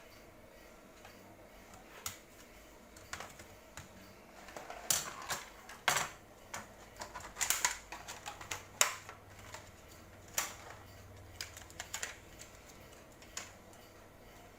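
Irregular small clicks, taps and light knocks of hard plastic and metal laptop parts being handled. They are sparse at first, come thick and fast through the middle with the sharpest knocks there, then thin out.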